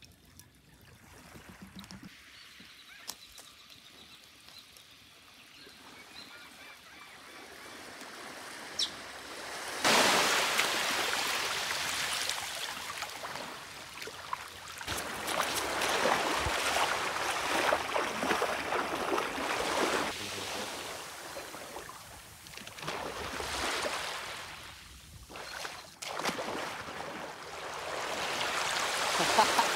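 Sea water splashing and sloshing in calm shallows, with small waves lapping; faint at first, then much louder from about a third of the way in, swelling and fading.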